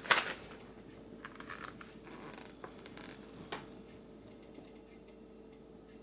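Paper rustling as a picture-book page is turned, followed by a few soft clicks and taps of handling the book.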